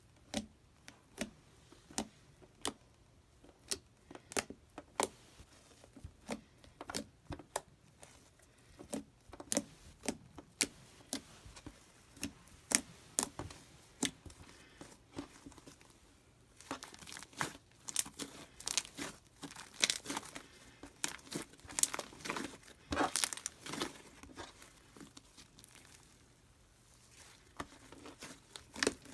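Slime being squeezed and stretched by hand, giving a run of sharp sticky pops and crackles that come thick and fast for several seconds past the middle.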